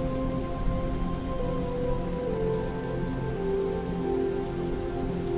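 Steady rainfall, with soft music of slow, held notes underneath that step gently down in pitch.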